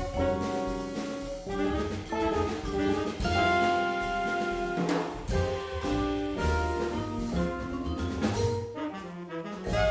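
Live jazz sextet playing: trumpet and tenor saxophone sound a line together over vibraphone, Fender Rhodes electric piano, upright bass and drum kit, with sustained horn notes changing every second or so.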